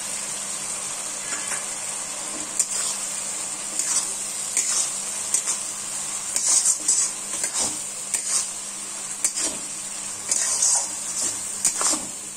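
Steel spatula stirring and scraping a sizzling onion, tomato and capsicum masala around a metal kadai: irregular scrapes, a few a second, over a steady frying sizzle.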